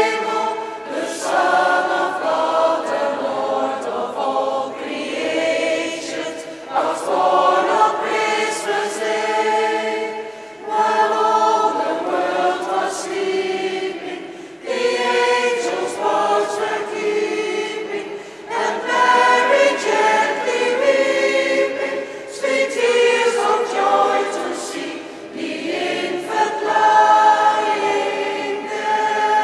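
Mixed choir of men and women singing together, in sung phrases of a few seconds each with short breaths between lines.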